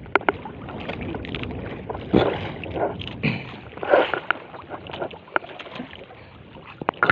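Wind and water noise aboard a small fishing boat out in strong wind, with scattered sharp knocks and clicks.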